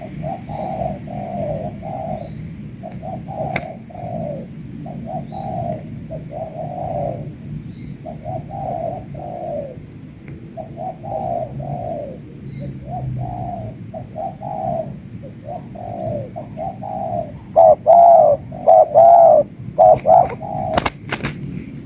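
Spotted doves cooing over and over, the calls of several birds overlapping. About three quarters of the way in, one dove coos much louder and closer, followed by a few sharp clicks near the end.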